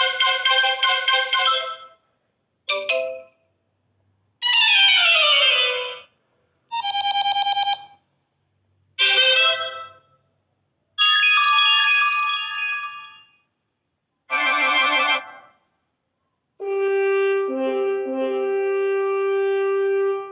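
A run of iPhone notification tones played one after another with short silences between them, about eight different short melodic jingles. One has a quick falling sweep, and the last is a longer held chord that ends right at the end.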